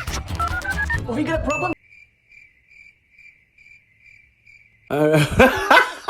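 Music with a rising run of notes cuts off abruptly under two seconds in. It leaves faint cricket chirping, two or three chirps a second: the comic 'awkward silence' crickets effect. A voice starts speaking near the end.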